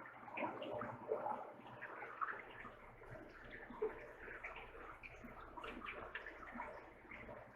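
Close, wet chewing and mouth sounds of someone eating ceviche in a citrus sauce: many small, irregular smacks and squelches.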